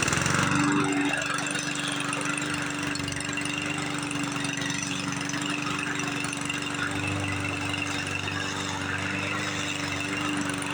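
Small lawn mower engines running steadily with a constant pitched hum, without revving.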